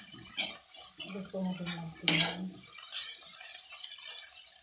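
Metal spatula stirring and scraping sliced beef in soy-sauce gravy around a wok, in short repeated strokes. A low steady hum lasts about a second in the middle.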